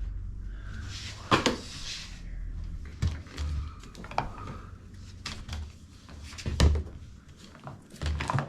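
Hard plastic parts of a shop vac being handled and fitted together: a few scattered knocks and clacks, with a brief rustle about a second in.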